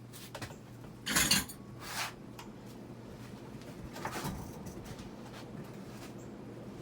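Casablanca Delta II ceiling fan running on high, with light clinking and rattling from its four-light kit, whose bulb filaments rattle while the fan runs. The loudest clinks come about a second in, at two seconds and around four seconds. The fan wobbles because its blades are out of alignment.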